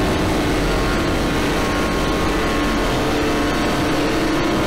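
Loud, steady, heavily distorted electronic music: a dense wall of noise over a low drone and a held tone.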